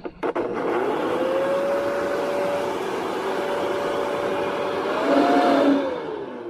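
Small electric fan motor, as in a blower or shop vacuum used to clear sawdust, spinning up with a rising whine over a rush of air, running steady, revving higher briefly about five seconds in, then spinning down near the end.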